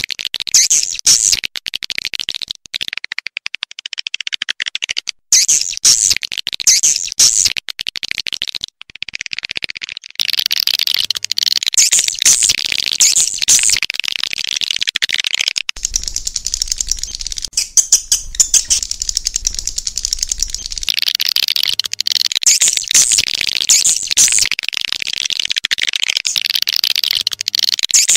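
Swiftlets twittering: a dense, loud stream of high chirps and chattering calls, broken by a few short pauses in the first ten seconds, then continuous.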